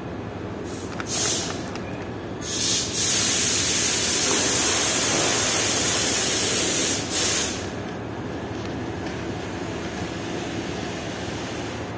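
Bursts of hissing over a steady background rumble: short bursts about one and two and a half seconds in, then one long hiss of about four seconds from about three seconds in.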